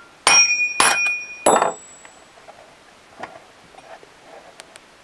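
Three sharp hammer blows on a steel spark plug wrench set against a chainsaw's clutch, each ringing briefly in metal, within the first two seconds, knocking the clutch loose against a rope-locked piston. Faint clicks and handling of the clutch follow.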